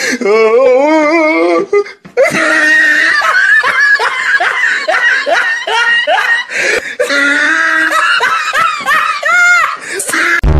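Loud, hearty laughter: a wavering laugh for about two seconds, then after a brief break a long run of laughter carrying on almost to the end.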